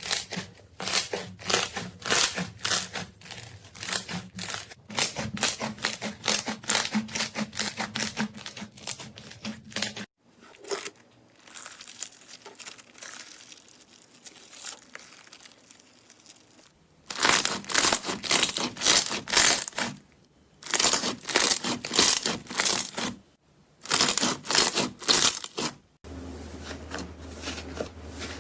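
Slime being squeezed and worked by hand, giving dense runs of crackling, popping clicks. The sound changes abruptly several times, with a quieter, softer stretch of crackle in the middle.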